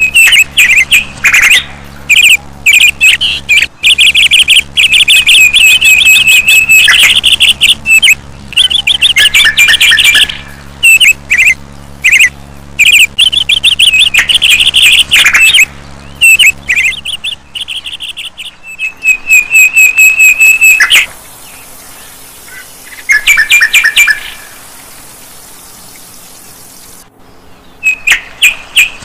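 Small birds chirping and trilling loudly in quick repeated bursts, close by. A steady low hum runs under them and stops about two-thirds of the way through.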